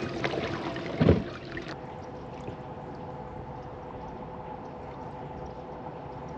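Water splashing and lapping against a bass boat's hull, with a sharp thump about a second in. After that the water sounds go quieter over a faint steady hum.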